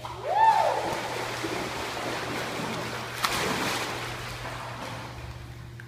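A husky leaping into an indoor pool and swimming, water splashing and churning steadily. A short call that rises and falls comes right at the start, and a single sharp smack about three seconds in.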